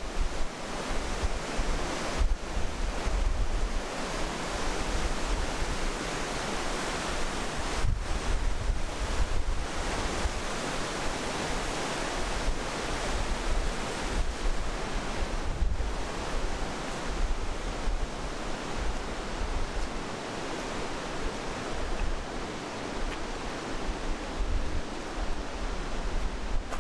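Steady rushing of a fast alpine river through a rocky gorge, with wind buffeting the microphone in low gusts.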